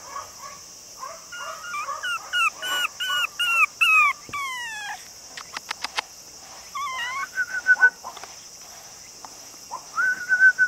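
Long-coat Chihuahua puppy, about seven weeks old, whining and crying: a run of short high cries that bend downward in pitch, then a few held, higher whines near the end. It is the crying of a lonely puppy, which the breeder takes for missing its mother and wanting attention.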